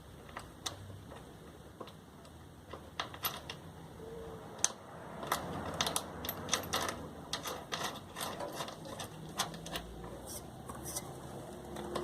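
Irregular clicks and light knocks from hands working on a sewing machine, parts and tools being handled, thickest in the second half.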